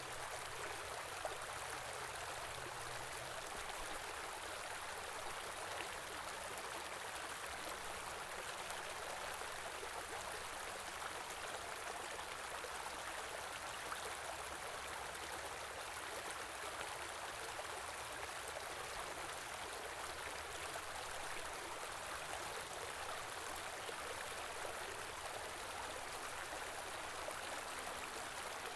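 Shallow stream flowing and gurgling steadily.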